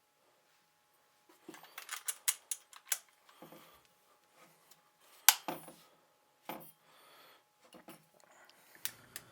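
Scattered sharp metallic clicks and clinks as an accessory blade is swapped on a Festool Vecturo oscillating multitool, with a few soft low knocks; the tool's motor is not running.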